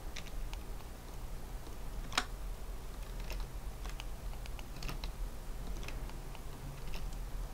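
Computer keyboard and mouse clicks from working in Blender: scattered, irregular keystrokes, the loudest one about two seconds in, over a faint low hum.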